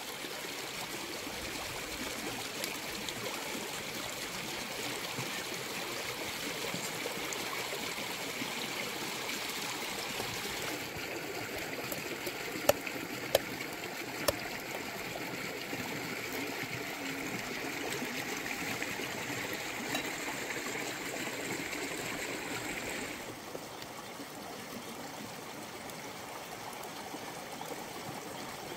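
Shallow stream running over rocks: a steady trickling wash of water. About halfway through come three sharp knocks in quick succession.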